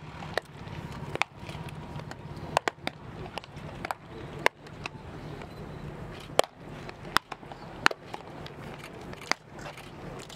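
Baseballs smacking into leather gloves during catch play: sharp pops at irregular intervals, roughly one a second, some louder than others, over a steady low hum.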